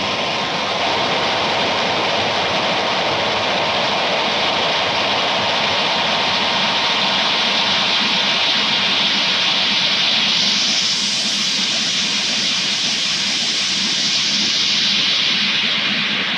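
Harsh noise music: a loud, dense wall of hissing noise with no beat or melody. About ten seconds in the hiss grows brighter and higher, then eases back near the end.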